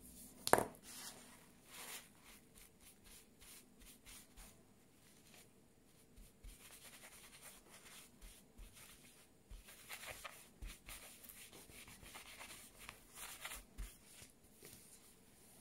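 A single knock about half a second in, as the marker pen is set down on the table, then a wad of tissue rubbed back and forth over embossed metal foil in short scratchy strokes, wiping off marker ink.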